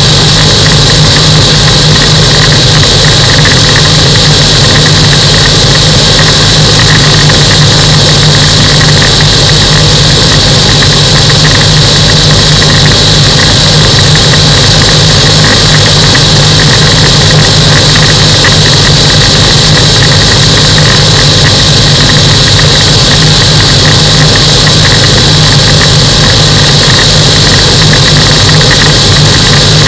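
Microlight aircraft's engine and propeller running steadily at constant power, loud and unchanging, with a steady high hiss over it.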